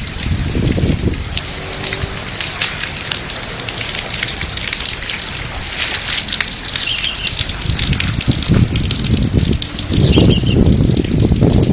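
Hailstorm: hailstones and heavy rain pelting down, a dense hiss full of sharp ticks of stones striking. Wind gusts buffet the microphone at the start and again from about eight seconds in.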